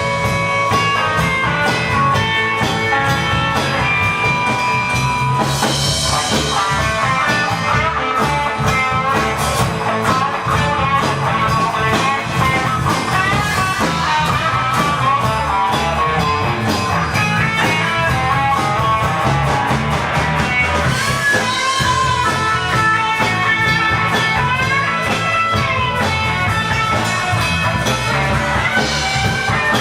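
Live rock band playing an instrumental break in a blues-rock song: a guitar lead of held notes and quick runs over bass and drums.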